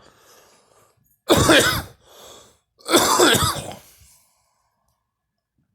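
A person coughing: two loud coughing bursts about a second and a half apart, the second one longer.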